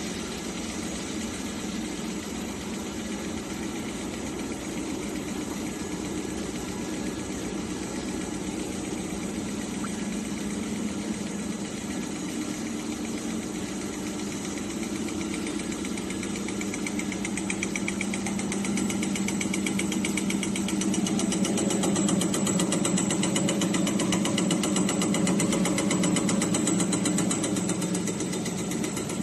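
Three-colour plastic drinking-straw extrusion line running, a steady mechanical hum of its motors and drives. It gets louder about two-thirds of the way through.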